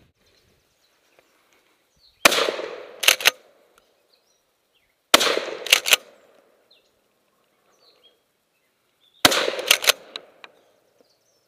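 Pump-action shotgun fired three times, a few seconds apart. Each shot is followed within a second by sharp clacks as the pump is worked to chamber the next shell.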